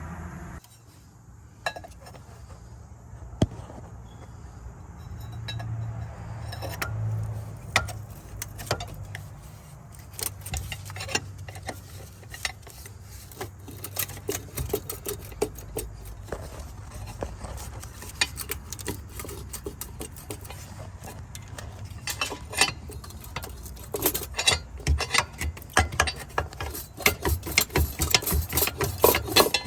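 Metal hand tools clinking and clicking on exhaust manifold bolts, with a low steady hum underneath. The clicks come thick and fast over the last several seconds, like a ratchet wrench turning a bolt.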